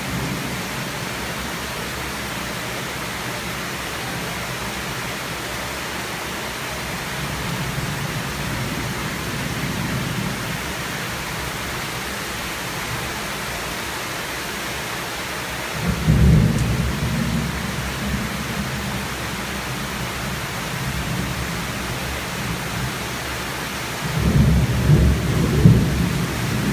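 Heavy tropical rain falling steadily, with thunder overhead: a sudden deep rumble about two-thirds of the way in, and another loud rumble near the end.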